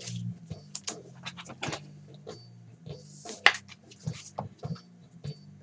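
Baseball trading cards being handled and slid over one another by gloved hands: scattered clicks and scratchy rustles, with one sharp snap about three and a half seconds in. A steady low hum runs underneath.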